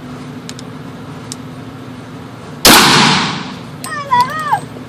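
A single shot from a Ruger SR40 .40 S&W pistol, about two-thirds of the way in, with a long echo that dies away over about a second. The next shot starts just at the end.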